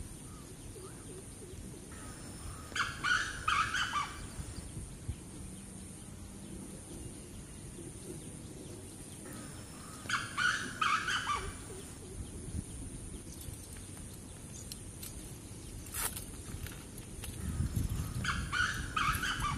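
A bird calling in three short bouts of several quick notes each, about eight seconds apart, over a low steady background rumble. There is a single sharp click about three-quarters of the way through.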